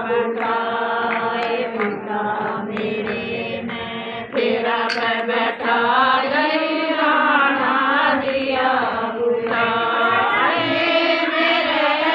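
A group of women singing a Hindi guru bhajan together, a devotional chant-like melody sung in one line with long held, wavering notes.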